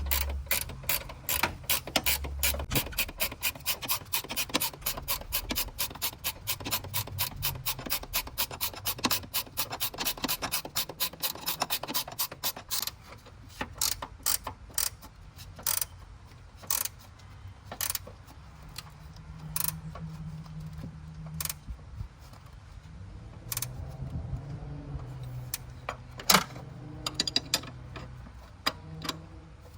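Hand ratchet wrench clicking as it runs a bolt. The clicks come fast and even for about the first twelve seconds, then slow to scattered single clicks.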